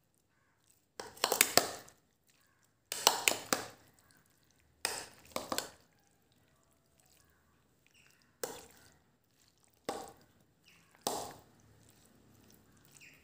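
A metal spoon scraping and clinking against a bowl in about six short strokes, stirring raw squid pieces.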